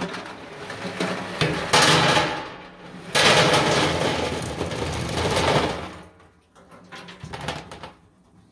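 Hard candies poured from a large metal can clattering into a stainless steel sink, in rattling bursts, the longest lasting nearly three seconds, then lighter rattles near the end.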